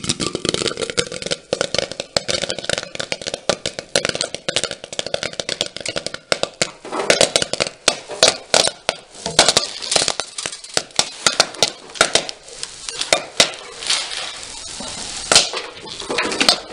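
Popcorn kernels popping in hot oil in a pot: a rapid crackle of sharp pops over a sizzling hiss, the pops louder and more distinct from about seven seconds in, as the batch nears the end of popping.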